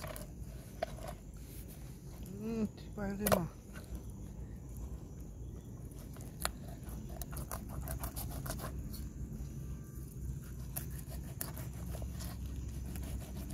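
Knife cutting mullet into bait pieces on a plastic plate, with scattered light clicks and taps. A person's voice calls out twice about three seconds in, over a steady low background hum.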